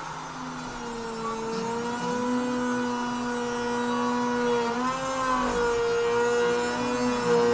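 Router spindle on a Longmill CNC machine running with its bit cutting into a wooden board, a steady whine that dips briefly in pitch and recovers about five seconds in.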